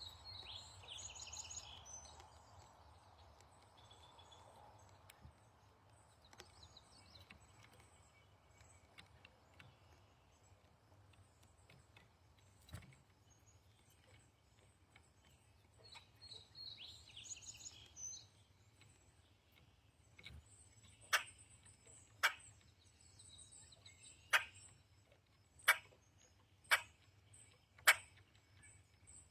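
A songbird sings a short high warbled phrase at the start and repeats it about halfway through, with faint scattered chirps between. Near the end come six sharp clicks about a second apart.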